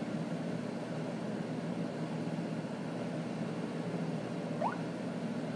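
Steady background noise with a low hum, like room tone from a fan or traffic; a brief faint rising tone sounds near the end.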